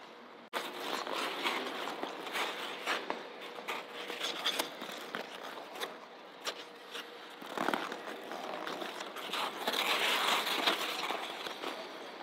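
Figure skate blades scraping and carving across the ice, a steady scratchy hiss broken by sharp clicks of edges and steps. It starts suddenly about half a second in and swells louder around ten seconds in.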